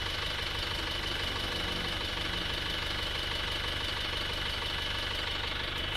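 Isuzu Panther's diesel engine idling steadily, heard at the exhaust tailpipe. The engine has just been rebuilt with new piston rings and runs healthy again.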